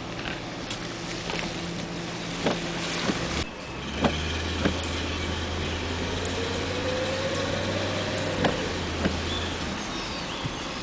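Truck engine running steadily while driving, with scattered small knocks and rattles. About a third of the way in the sound breaks off abruptly and resumes as a deeper, steady drone that fades near the end.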